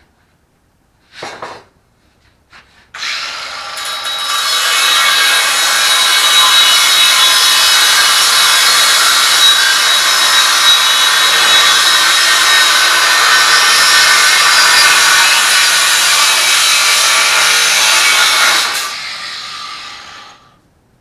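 Ryobi 18V cordless angle grinder starting up and working against material for about fifteen seconds, then spinning down once released. A short knock comes just before it starts.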